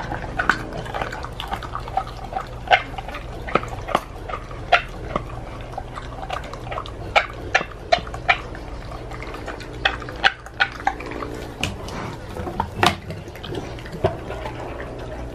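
Pitbull-mix dog chewing raw pork: wet smacking and tearing, with irregular sharp crunches and snaps.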